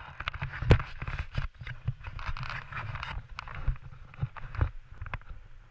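Handling noise from an action camera: a run of clicks and knocks with a scraping rustle as it is moved and straightened on its mount, the loudest knock about a second in. The rustle stops about three seconds in, leaving scattered knocks over a low rumble.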